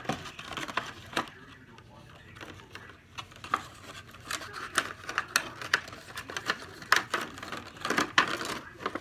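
Plastic toy packaging and cardboard box crackling and clicking as a small toy monster truck is worked free of it by hand; irregular clicks and crinkles that grow busier about halfway through.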